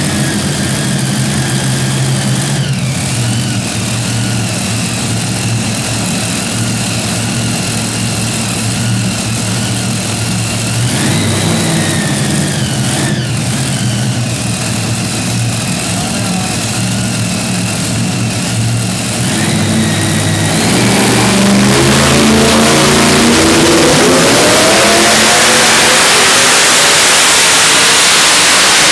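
Modified pulling tractor's big racing engine idling roughly at the start line, with brief throttle blips about 3 and 11 seconds in. About 20 seconds in it goes to full throttle for the pull: the pitch climbs steeply and the sound turns into a much louder roar that holds to the end.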